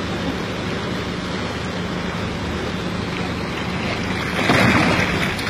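A big wels catfish thrashing at the surface beside a boat, throwing up one loud splash about four seconds in, over steady wind and water noise.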